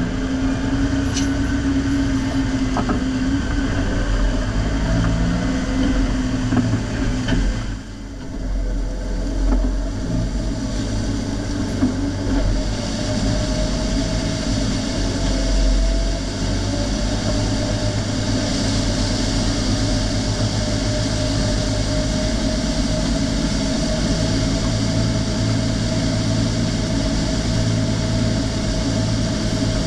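Harvest machinery engine running steadily, with a brief dip in loudness about eight seconds in.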